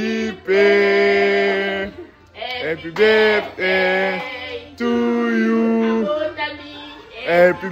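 A man singing unaccompanied, holding long notes in phrases a second or two long, with short breaths between them.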